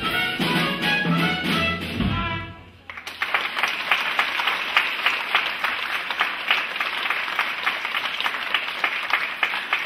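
A stage musical number with instrumental accompaniment ends about two and a half seconds in, followed by sustained audience applause.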